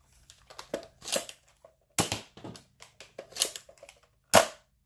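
Spring-powered Nerf foam-dart blaster being worked and fired: a series of sharp plastic snaps and clacks, four of them strong, the loudest near the end.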